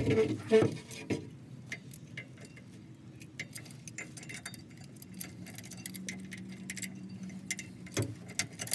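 Scattered small metallic clicks and taps as bolts and washers are fitted by hand into a steel lift-pump mounting bracket under a truck, with a couple of louder knocks in the first second.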